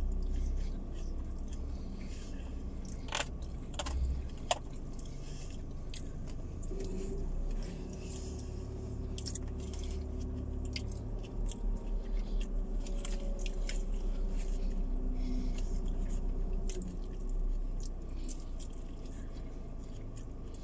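Close-up chewing of chicken rendang and rice, falling into a steady chewing rhythm in the middle, with scattered sharp clicks from a plastic spoon and takeaway container.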